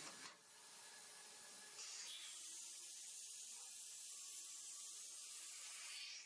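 Steady high hiss from a CNC machining centre as its spindle head travels to the tool rack for a tool change, stepping up about two seconds in and cutting off near the end.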